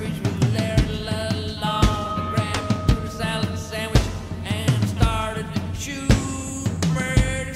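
A song with a singing voice over a steady drum beat.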